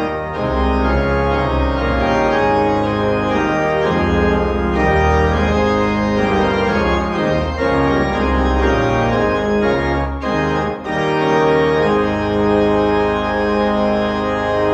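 Church organ playing sustained full chords with deep pedal bass notes, briefly breaking off twice a little over ten seconds in.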